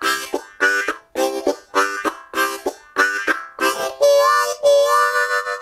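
Harmonica played cupped in the hands in a train-imitation style: rhythmic chugging chords about every half second, then a long held chord from about four seconds in.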